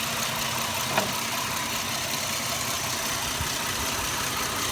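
Vehicle engine idling steadily, with one short click about a second in.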